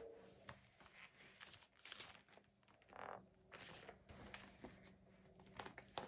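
Faint rustling of a hardcover picture book's pages being handled and turned, in scattered soft scuffs.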